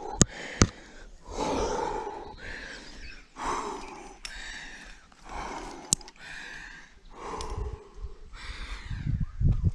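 A rock climber breathing hard with effort, heavy exhalations about once a second, straining on a hard route. A few sharp clicks stand out near the start and about six seconds in.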